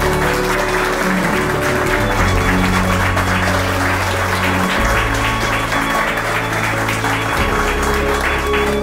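A crowd of guests applauding steadily, over instrumental music with long held bass notes.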